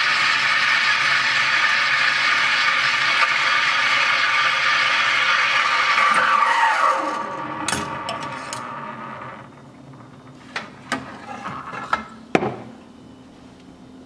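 ECM espresso machine's steam wand hissing steadily as it steams a pitcher of milk at full pressure, its tip holes freshly cleaned. About six and a half seconds in the steam is shut off and the hiss dies away with a falling whine. It is followed by a few light clicks and knocks as the metal pitcher and thermometer are handled.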